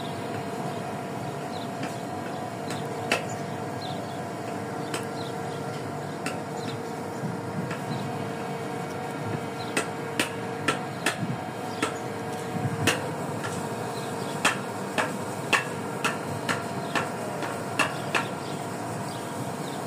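Steady hum of a fishing vessel's machinery, with irregular sharp metallic clicks, sparse at first and frequent in the second half, as longline hooks and snaps are handled against a stainless-steel hook rail.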